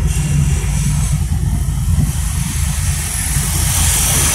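Car engine and road noise heard from inside the cabin while driving, a steady low hum, with a hiss swelling near the end.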